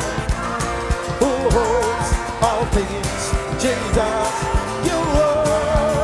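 Live worship music: a man singing a wavering, held melody into a microphone over acoustic guitar and a band with a steady drum beat.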